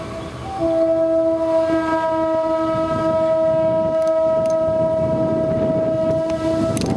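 Freight car wheels squealing against the rail as a cut of covered hopper cars rolls slowly through the yard: one steady high squeal that breaks off briefly at the start, with a few sharp metallic clanks near the end.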